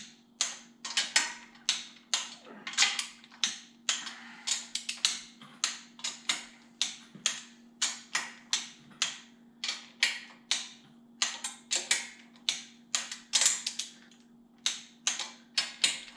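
Socket ratchet clicking in uneven runs of sharp ticks, about two or three a second, as nuts are run down on the cylinder head of a VW air-cooled flat-four. A steady low hum sits underneath.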